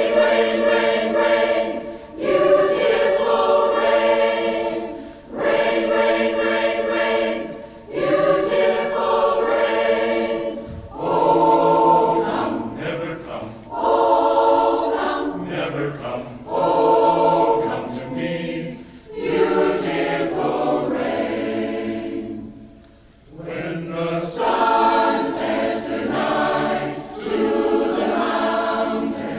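Choir singing in harmony, in phrases of a few seconds each with short breaks between them.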